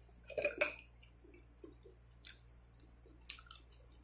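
Quiet chewing and wet mouth sounds from a person eating sweetened banana in coconut cream. A few sharp clicks are heard, the loudest cluster about half a second in.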